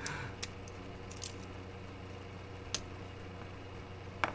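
A handful of faint, separate clicks, about five spread across a few seconds, over a steady low electrical hum.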